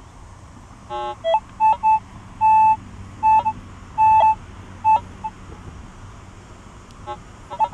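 Minelab CTX 3030 metal detector giving a run of short target beeps as the coil sweeps over the grass, mostly one mid-pitched tone with a few lower, buzzier ones mixed in, and a pause of about two seconds before two more near the end. The beeps are its response to a buried target just ahead of the coil.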